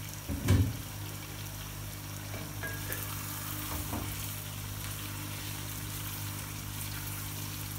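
Masala fish curry sizzling over a low flame in a steel kadai while a wooden spoon stirs it, with a few faint knocks of the spoon. A brief loud knock about half a second in stands out over a steady low hum.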